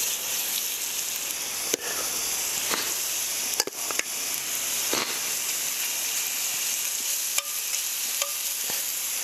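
Cubes of seasoned pork shoulder sizzling as they sear in oil in a hot enameled cast-iron pot, with sharp clicks now and then from metal tongs setting more pieces in the pan.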